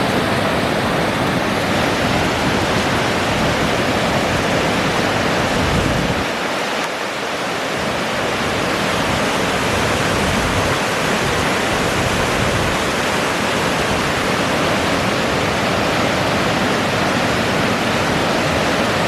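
Waterfall: a loud, steady rush of falling water, an even hiss spread from deep to high. The deep part of the rush drops out briefly about six seconds in, then returns.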